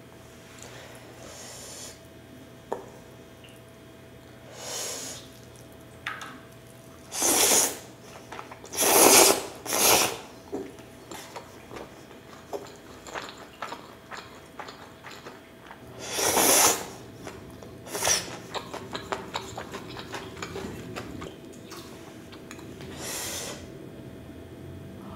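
Noodles being slurped and chewed: about seven loud slurps of half a second to a second each, with wet chewing clicks between them.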